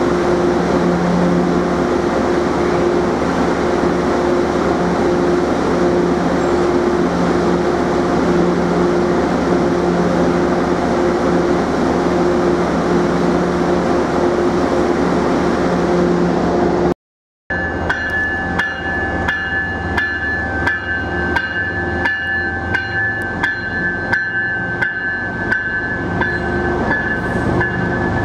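A train passing: a steady rumble with a low hum. After an abrupt cut about two-thirds of the way in come wheels clicking over rail joints, about two clicks a second, under a high steady whine.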